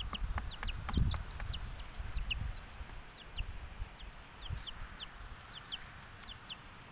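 Chicks peeping over and over, short falling peeps about two to three a second. A few low knocks and rustles come in the first couple of seconds.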